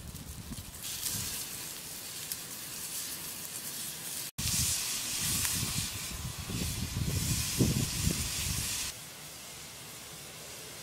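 Cow lung sizzling on a hot griddle over a wood fire, a steady high hiss. After a brief dropout midway it turns louder, with low rumbling as flames flare up under the pan, then cuts off sharply near the end.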